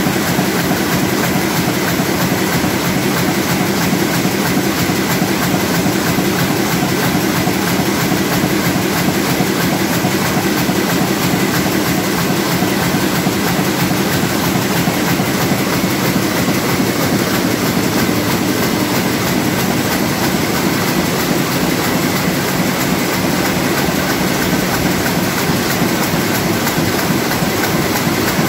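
Komori Lithrone L432 four-colour sheetfed offset printing press running, a steady fast mechanical clatter that keeps up evenly throughout.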